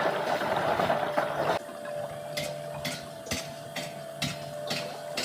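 Machinery running: a loud steady noise with a held tone, which cuts off abruptly about one and a half seconds in. After it comes a quieter steady hum with a regular clicking about twice a second.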